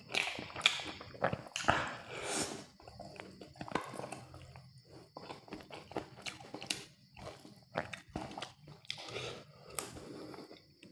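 Biting and chewing crispy KFC fried chicken close to the microphone: a string of irregular crunches and crackles.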